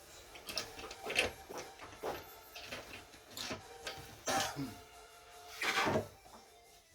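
Irregular clinks, knocks and short scrapes of metal parts being handled as a manual gearbox is taken apart on the bench.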